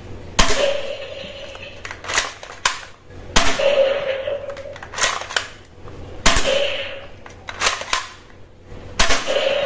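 A toy gun fired about ten times at uneven intervals. Each shot is a sharp crack, and several are followed by a brief ringing tone.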